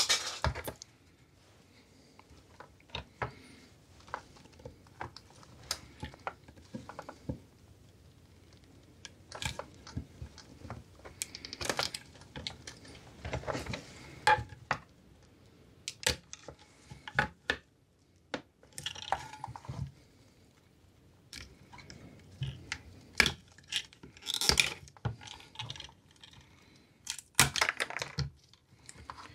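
Brittle plastic of a Jaguar XK8 headlamp reflector cracking and crunching as it is broken away from the lens with a hand tool, in irregular sharp clicks with short pauses, small pieces clattering onto the tray. The plastic is crumbling after being left soaking in petrol.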